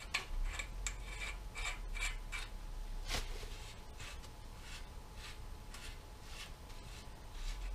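Hand-fitting the cap onto a Ducati ST2 steering stem over freshly greased headstock bearings. It makes a string of soft, irregular metal scrapes and ticks, one a little louder about three seconds in.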